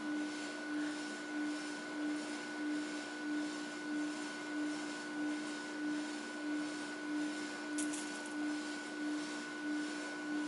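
A steady electrical hum that swells and fades about one and a half times a second, with a fainter higher tone above it and a few light clicks near the end.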